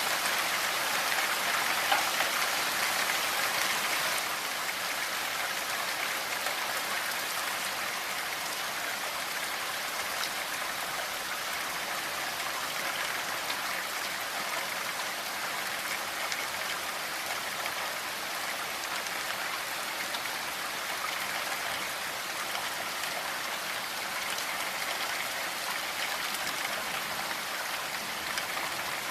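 Steady rain falling, an even hiss of many small drops, a little louder in the first few seconds.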